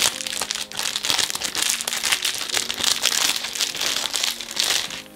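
Clear plastic wrapper of a small packaged cake crinkling and rustling as it is pulled open by hand.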